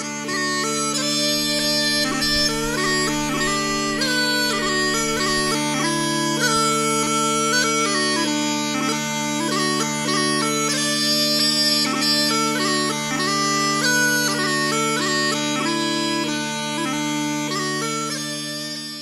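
Bagpipe music: a melody played over steady, held drones.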